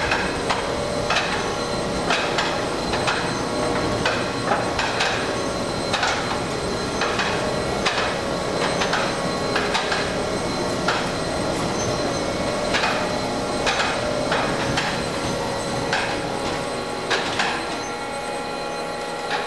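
Infrared telescope observatory dome rotating on its track: a steady mechanical drone from the drive with irregular clanks and knocks, about one a second. Near the end the knocking stops and the level drops.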